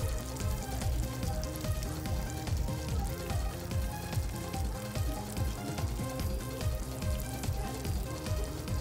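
Background music with a steady, repeating bass beat, over chicken wings sizzling and crackling as they fry in hot oil.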